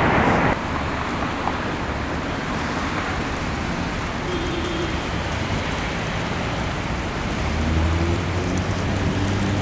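Steady street and traffic noise along a tramway, with a low electric hum from an approaching tram growing louder in the last couple of seconds.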